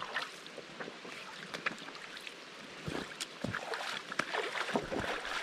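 Waders sloshing and splashing through shallow water over a stony riverbed, with irregular splashes, over the steady rush of the river.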